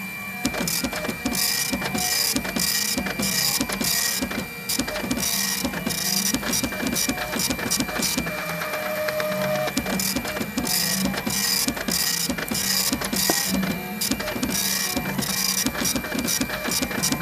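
Printer running: a rasping print pass about twice a second over a steady high whine and small clicks, with short pauses between runs.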